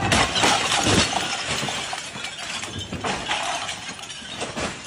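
Roof tiles of a pavilion breaking loose and crashing onto the paving below, a dense clattering shatter that is loudest in the first second and then thins into scattered clinks and knocks.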